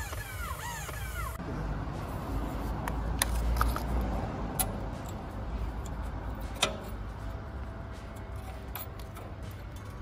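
A quickly repeating chirping tone cuts off a little over a second in. Then comes low rumbling handling noise, with a few sharp clicks as a hand handles the brake parts behind an alloy wheel.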